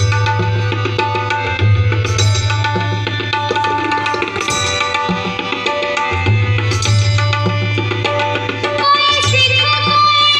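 Indian song accompaniment without voice: a tabla-led percussion rhythm with deep drum strokes under melodic instruments.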